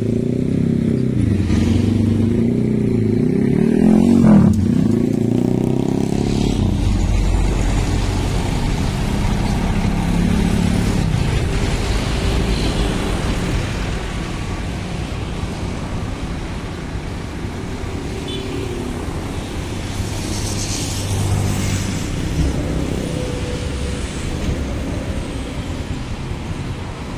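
Scania K360iB coach's diesel engine running as the bus turns in and moves onto a petrol station forecourt, with other road traffic around it.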